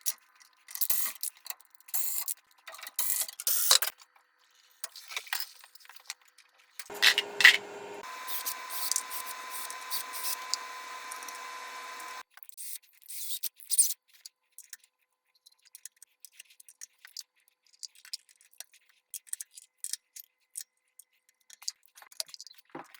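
Plumbing repair work on a cracked water line: scattered clicks, scrapes and rubbing of tools and pipe parts being handled. A steady hum with a few held tones comes in about seven seconds in and stops about five seconds later.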